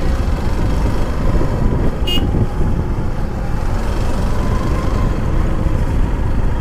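Motorcycle riding along a hill road, heard from the rider's camera: steady engine and road noise with wind rumbling on the microphone. A short high beep about two seconds in.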